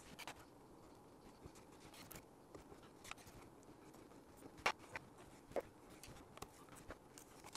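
Faint, scattered clicks and scratches of hands laying and pressing down strips of masking tape on a model rocket's fins, with one louder click a little past halfway.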